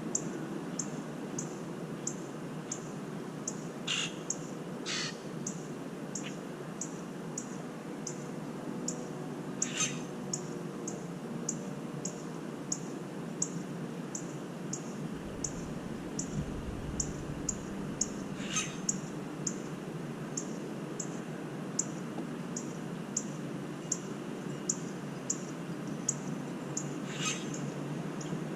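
Steady wind noise in strong gusty wind, with a deeper gust rumble about halfway through. A faint high ticking repeats about twice a second throughout, and five short sharp calls or cracks stand out.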